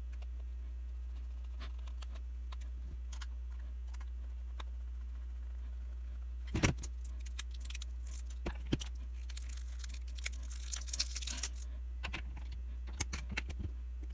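Small clicks and rattles of AA batteries and a plastic multimeter battery compartment being handled and worked with a screwdriver, busiest in the middle with a quick run of clicks and a crinkly rattle. A steady low hum runs underneath throughout.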